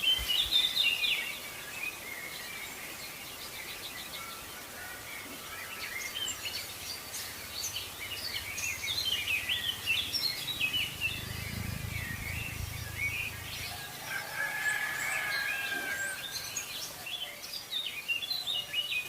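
Birds chirping and calling, several at once, with short trills and tweets over a steady background hiss. A low rumble rises for several seconds near the middle.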